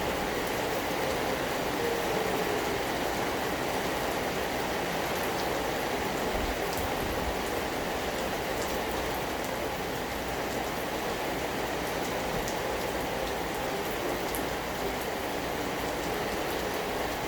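Steady rain falling, an even hiss with a few faint drop ticks on top.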